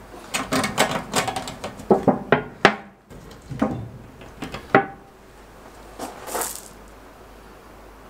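Gloved hands working the cap off a square steel can of oil-based rust-preventive paint: a quick run of metallic clicks and knocks with short ringing over the first five seconds, then a brief hiss about six seconds in.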